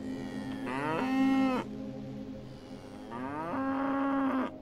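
Cow mooing twice: each moo starts with a rising pitch and then holds a steady low note. The second moo comes about two seconds after the first.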